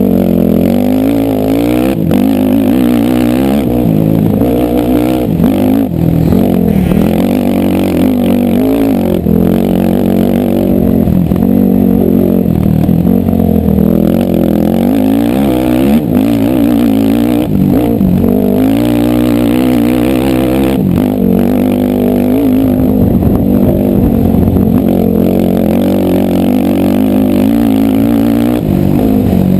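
ATV engine running hard, its revs rising and falling again and again as the throttle is worked.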